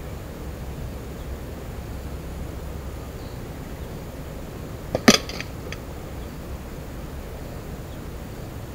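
A slingshot shot striking the target rig with one sharp crack about five seconds in, followed by a few light rattles as the hanging target and stand are set swinging.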